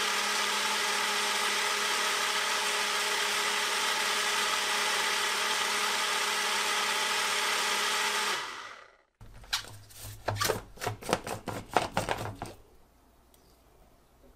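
Ninja Fit 700-watt personal blender's motor running loud and steady at one pitch for about eight seconds while the cup is held down, blending a fruit smoothie with frozen mango chunks, then winding down as the cup is let go. A few seconds of irregular knocks and clatters follow.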